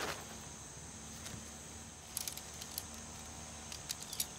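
Metal tent poles clicking and clattering as they are pulled out and handled, starting about halfway through, after a brief rustle of tent fabric. A steady high hiss runs underneath.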